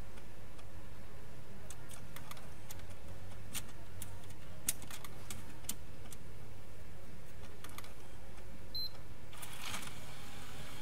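Scattered small plastic clicks and taps from hands working the mechanism of an opened PlayStation 4 disc drive that has a disc stuck in it, with a short scraping rush near the end, over a steady low hum.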